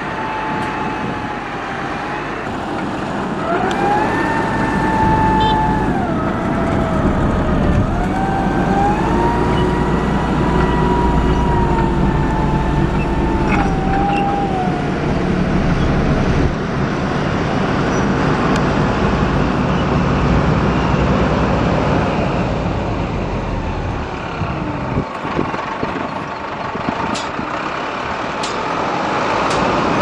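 Diesel engines of heavy road-construction machines, a road roller and a motor grader, running with a steady low rumble. For the first fifteen seconds or so a whine rides over it, rising and falling in pitch as the revs change. A few sharp ticks come near the end.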